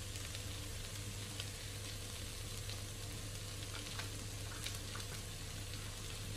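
Chopped onions, sweet peppers and dry spices frying in a cast aluminium pot: a steady soft sizzle with a few faint crackles.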